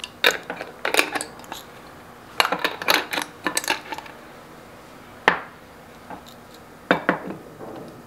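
Glass jars of coffee beans being handled: lids put on and the jars picked up and set down on a countertop. There is a scatter of clinks and knocks, with a sharp clack about five seconds in and another about seven seconds in.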